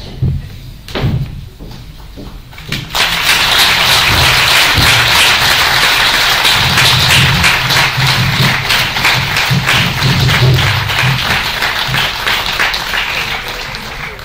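Audience applauding, starting suddenly about three seconds in and thinning slightly near the end.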